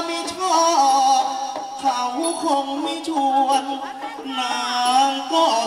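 Likay (Thai folk opera) stage music: a loud melody of held notes moving up and down in steps, with a few sliding notes near the end.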